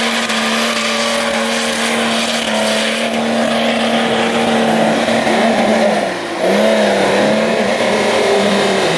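Jeep Grand Cherokee engine held at high revs with its tyres spinning in snow, throwing snow against the body with a steady hiss. The revs drop briefly about six seconds in, then pick up again unevenly.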